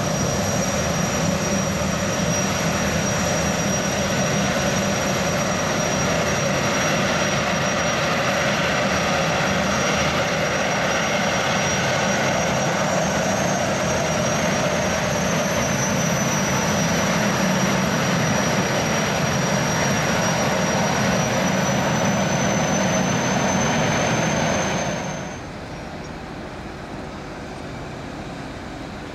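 Boeing 929 Jetfoil's gas turbines running with a steady jet-like whine and a thin high tone as the boat moves off across the harbour. About 25 seconds in the sound drops sharply to a quieter, steady rush.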